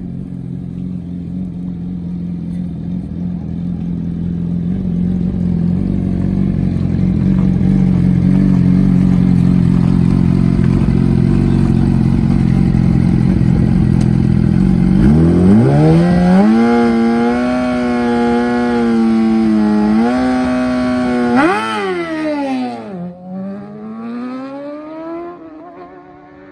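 Suzuki GSX-R 1000 inline-four drag bike running steadily at the start line, then launching about fifteen seconds in: the engine note climbs sharply, holds, and rises again through quick upshifts. It fades near the end as the bike runs away down the strip.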